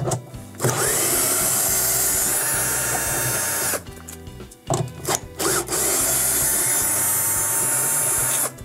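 Cordless drill/driver with a 3/8-inch hex nut driver bit spinning in reverse, backing out the washer's stator mounting bolts. It makes two steady runs of about three seconds each, with a whine, and short clicks of handling come between them.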